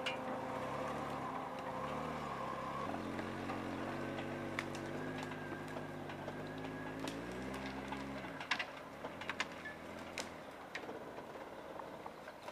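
Jeep engine revving up at about three seconds, holding steady, then dropping away about eight seconds in. A handful of sharp cracks and snaps follow as the Jeep noses over the crest onto the slope.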